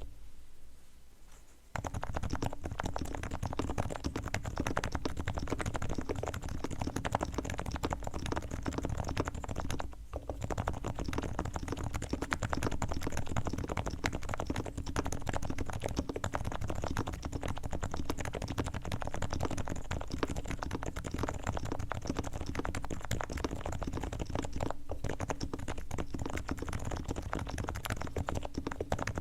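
Continuous typing on a Realforce R3 keyboard fitted with silenced (low-noise) 45 g Topre switches, fully lubricated: a dense run of keystrokes starting about two seconds in, with short pauses around ten and twenty-five seconds.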